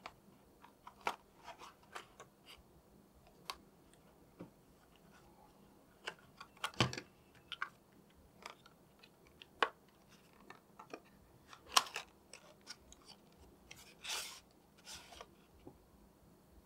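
Cardboard phone-box packaging being handled: scattered light taps, clicks and short scrapes as the inner insert and the cable sleeve are lifted and opened, with a longer rustling scrape about fourteen seconds in.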